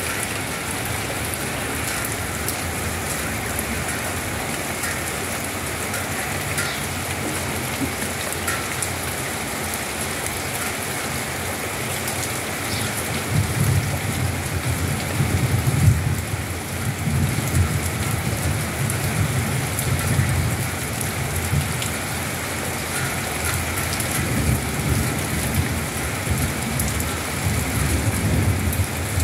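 Steady rain falling, with an irregular low rumble that starts about halfway through and comes and goes.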